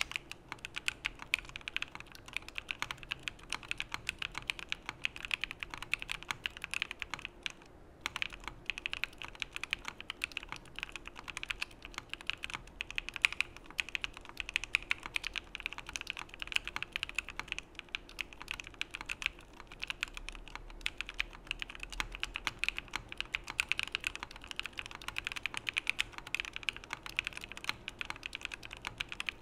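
Continuous fast typing on a Frog by Geonworks mechanical keyboard fitted with Epsilon linear switches (nylon housings, P3 stem) in an aluminium plate, with no foam or dampening and CRP R4 keycaps: a dense run of keystrokes and bottom-outs, with a brief pause about eight seconds in.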